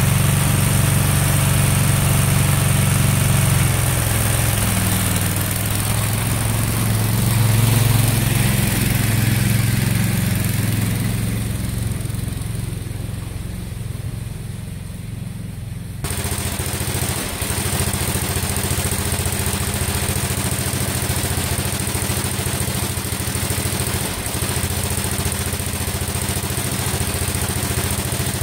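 Craftsman garden tractor's engine running steadily, getting louder for a moment and then quieter for a few seconds before it jumps back to a steady run about halfway through.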